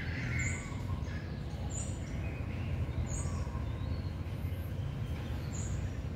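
A bird chirping, short high notes repeating about every second and a half, over steady low outdoor background noise.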